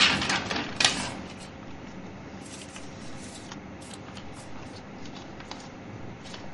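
Rustling and knocks of paper and chair handling as a person sits down, with two loud sharp clicks in the first second, then steady hiss with scattered faint ticks of paper being handled.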